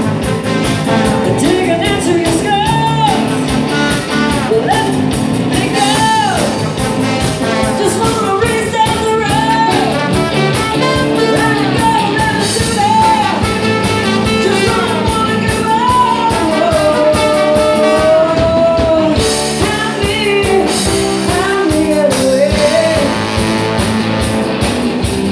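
Live band playing a bluesy rock number: trombone lines and singing over electric guitar, keyboard and drums, with a long held note about two thirds of the way through.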